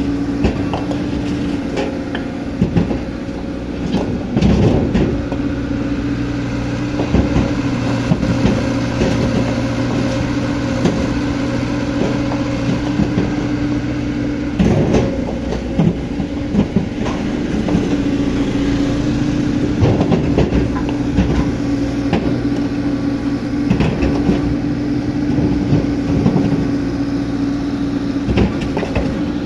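Hydraulic excavator's diesel engine running steadily under load while it loads a dump truck, with frequent clanks and knocks of the bucket and material, the loudest about 5, 15 and 20 seconds in.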